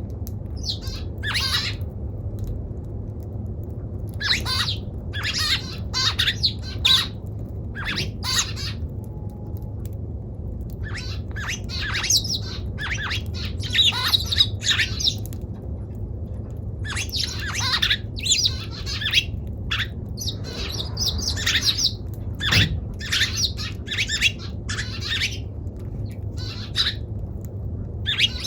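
Eurasian tree sparrow calling: runs of sharp, harsh chirps in clusters, broken by short pauses.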